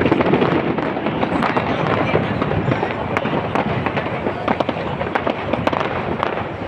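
Fireworks display: shells bursting with dense, rapid crackling and popping, louder at the very start.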